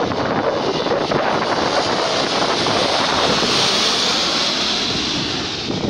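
Lockheed C-130H Hercules's four Allison T56 turboprop engines as the plane passes low overhead on landing approach. The engine noise builds, with a high whine at its loudest about three and a half to four seconds in, then eases slightly near the end.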